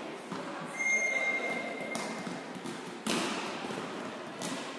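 A few separate volleyball thuds echoing around a large sports hall, the loudest about three seconds in.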